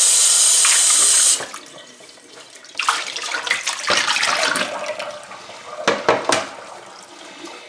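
Kitchen sink tap running hard, shut off abruptly a little over a second in, followed by irregular splashing and knocking in the sink as raw chicken pieces are rinsed and handled.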